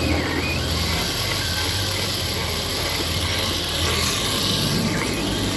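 A fishing reel's drag clicking fast and continuously as a big dogtooth tuna's run strips line off the spool, over the steady low drone of the boat's engine.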